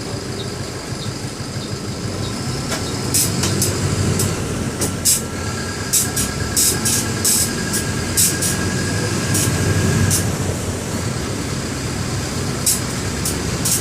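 Mercedes-Benz OM-924 LA four-cylinder inline diesel engine of an OF-1721 BlueTec 5 bus running under way, a steady drone that grows a little louder after a couple of seconds, with frequent short, sharp noises over it.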